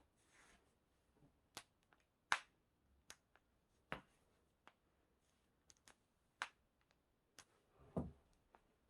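Human joints cracking: a string of about ten sharp pops at uneven intervals. The loudest comes about two seconds in, and a fuller, deeper pop comes near the end.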